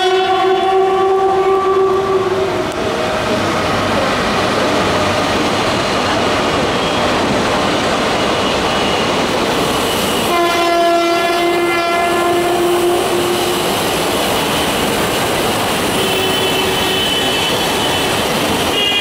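Electric locomotive horn of the Deccan Queen express sounding as the train speeds through the station. One blast ends about two seconds in, a second blast of about three seconds comes around the middle, and a shorter, fainter tone follows later, all over the steady noise of the coaches running past on the track.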